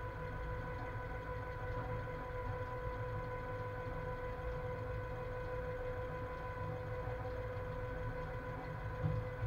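Cab of a class 130 electric locomotive hauling a heavy freight train: a steady low running rumble with a constant high hum of fixed pitch over it, and a brief louder knock near the end.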